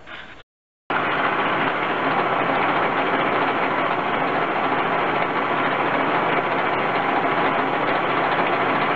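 A roughly 49-year-old metal lathe running steadily, a loud, even mechanical noise of the spindle and its gearing that starts just under a second in after a brief silent gap.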